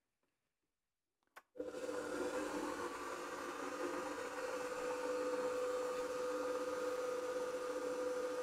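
Kenwood Titanium Chef Baker XL stand mixer starting up after a single click about a second and a half in, then its motor running steadily with an even hum, turning the dough hook in an empty bowl.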